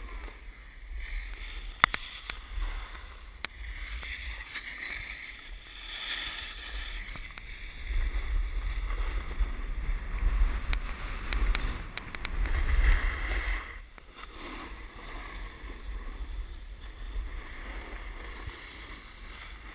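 Wind rumbling on a moving action camera's microphone along with the hiss and scrape of snowboard edges sliding over packed snow, with a few sharp clicks. It grows louder for a stretch in the middle and eases about three quarters of the way through.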